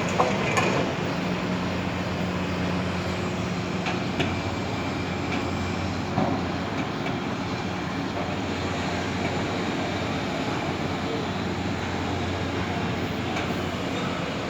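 Steady machinery drone with a low hum, with a few short knocks near the start and again about four and six seconds in.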